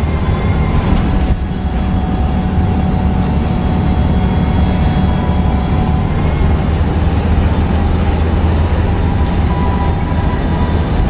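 Volvo B58 bus's 9.6-litre six-cylinder THD100 diesel running steadily under way, heard from inside the passenger cabin: a constant low drone with road noise and a faint steady whine above it.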